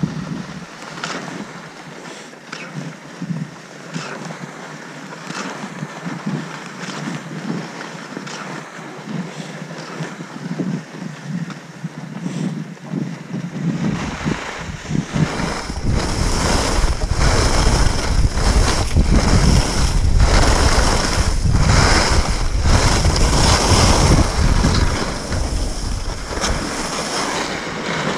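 Skis hissing and scraping over snow on a downhill run, with many short scrapes, and wind buffeting the microphone. The wind rumble and hiss grow much louder about halfway through.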